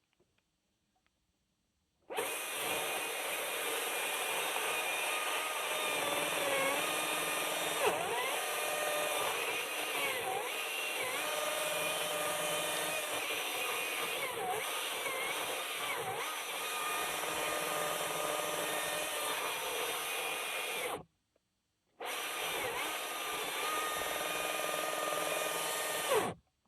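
Husqvarna 540i XP battery electric chainsaw running at full speed, starting about two seconds in; its motor whine dips in pitch and recovers several times as it works through cuts. It stops for about a second, then runs again for about four seconds.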